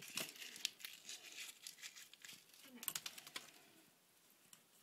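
A kitten scrabbling in a plastic box: scratchy rustling and quick clicks of claws, dying away near the end.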